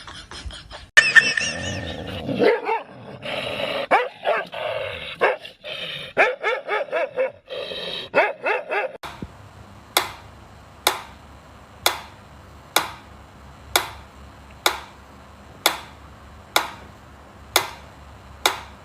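A dog barking and yelping with rising and falling pitch, then, about nine seconds in, a steady series of short sharp sounds roughly once a second.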